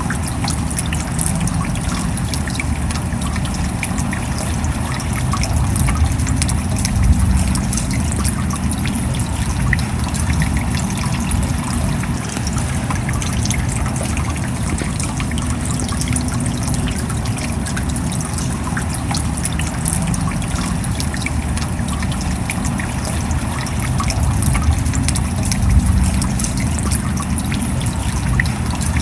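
Steady rain falling, with many small drop impacts over a deep low rumble. It swells briefly twice.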